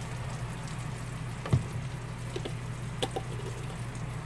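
A few light clicks and taps of kitchen utensils at a frying pan, the loudest about a second and a half in, over a steady low hum.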